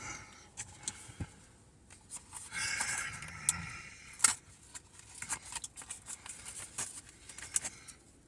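Scattered small clicks and a rustle of fast-food packaging and chicken nuggets being handled and eaten, with one sharper click a little past the middle.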